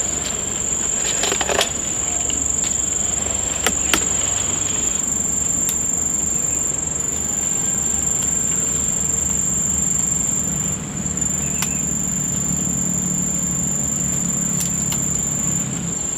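Steady high-pitched insect drone, typical of crickets or cicadas, with a few sharp clicks scattered through it and a low hum that grows louder in the second half.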